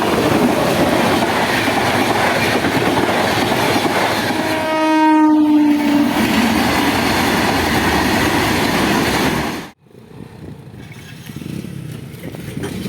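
Train passing close by at speed, its wheels clattering over the rails. About four and a half seconds in, the locomotive's horn sounds for about a second and a half, its pitch dipping slightly. The loud train noise cuts off abruptly near ten seconds in, leaving quieter background noise.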